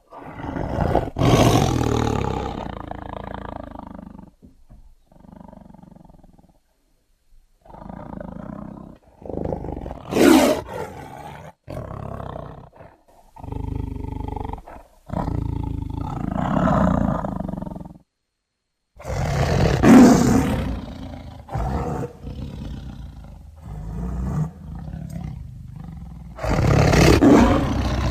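Tiger roaring: a string of loud, rough roars with quieter growls between them, broken by a few short silences.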